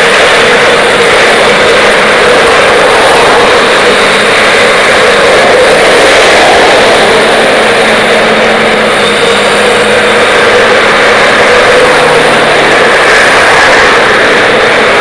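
Caterpillar hydraulic excavator's diesel engine running steadily, loud and unbroken.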